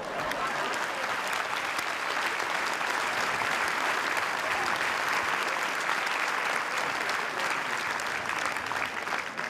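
Large audience applauding, a dense, steady patter of many hands clapping.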